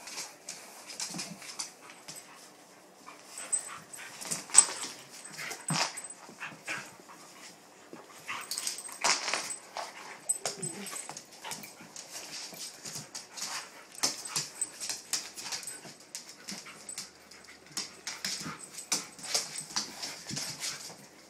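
Two dogs play-fighting on a wooden floor: an irregular stream of scuffles and claw clicks on the boards, with short dog whines mixed in.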